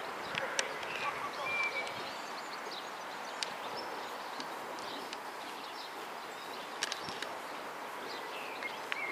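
Steady outdoor background noise with a few short bird chirps, one about a second and a half in and more near the end, and scattered faint clicks.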